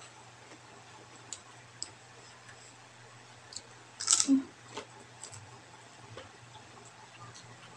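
Eating sounds: small mouth clicks and chewing noises, with one louder, sharper noise about four seconds in as a handful of food goes into the mouth.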